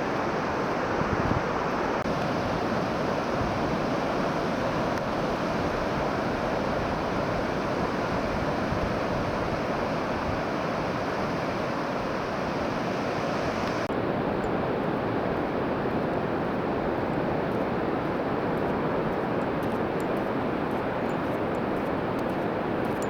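Steady, unbroken rushing noise of wind and moving water; the hiss loses its top end about fourteen seconds in.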